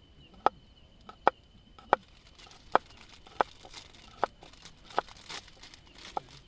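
Knife chopping food on a cutting board: sharp, evenly paced knocks, about eight or nine of them, one every two-thirds of a second or so.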